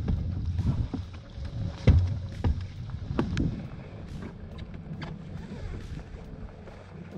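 Wind rumbling on the microphone aboard a small fishing boat, with several short knocks and clunks, the loudest about two seconds in.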